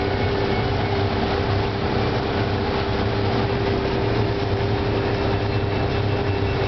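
Motorboat engine running steadily under way, a constant drone and low hum over an even rushing noise.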